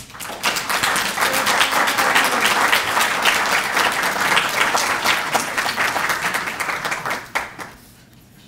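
Audience applauding: dense clapping from many hands that starts just after the start and fades out about a second before the end.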